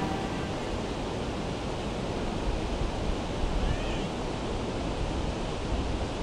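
Steady outdoor rushing noise with no rhythm or pitch, with a faint short high chirp about four seconds in.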